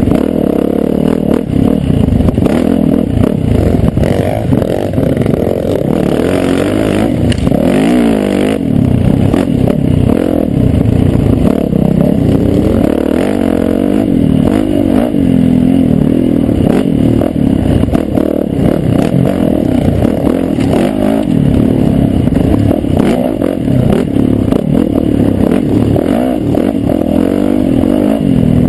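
A Yamaha YZ450F's single-cylinder four-stroke engine running under load on the trail, its pitch rising and falling over and over as the throttle opens and closes. Clatter and scraping from the bike running over the rocky ground.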